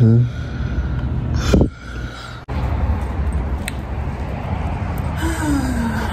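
Steady low rumble of road traffic, starting abruptly about two and a half seconds in, with a woman's voice briefly near the end.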